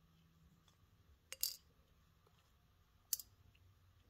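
Small carburetor float parts (hinge pin, needle, float) being set down in a steel parts dish, giving light metallic clinks: a quick double clink about a second and a half in and a single one about three seconds in.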